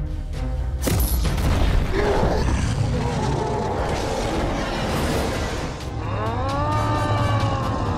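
Cartoon fight sound effects: a sharp boom about a second in, then a rumble. Near the end comes a deep, drawn-out monster roar whose pitch rises and then falls.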